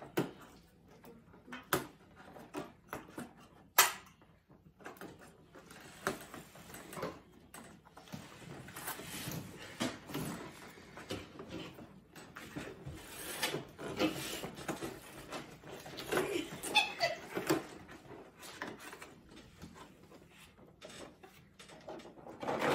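Pet-food packaging being opened and handled at a table: paper and cardboard rustling and crinkling, with scattered sharp clicks and taps.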